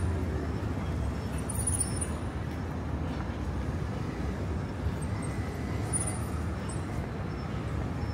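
Street ambience: steady road traffic running past, a continuous low rumble of car and bus engines and tyres.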